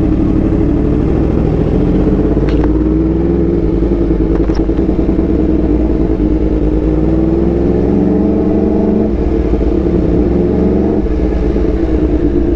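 Yamaha R1M's crossplane inline-four running through an SC Project exhaust while being ridden: the engine note climbs gradually under throttle, drops back about nine seconds in, then climbs again.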